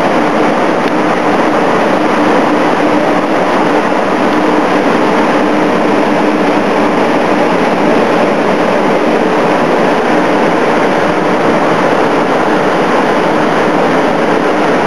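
Floor air mover (carpet-drying blower fan) running steadily: a loud, even rush of air with a steady hum under it.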